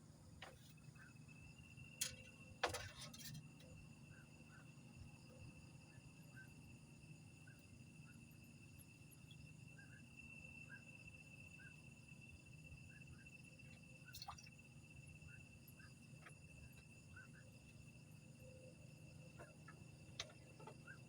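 Night insects, crickets among them: one steady high trill with short chirps repeating every second or so over a low hum. A few sharp knocks stand out, the loudest about two and three seconds in.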